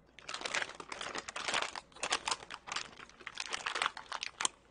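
Plastic potato chip bag crinkling and crackling as it is handled and rummaged through, in dense irregular crackles that start a moment in and stop just before the end.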